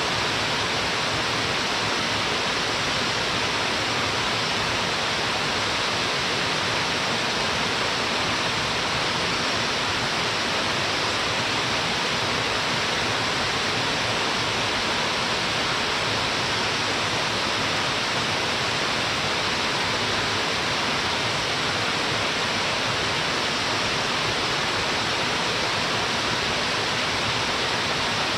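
Waterfall pouring into a wide plunge pool: a steady, unbroken rush of falling water.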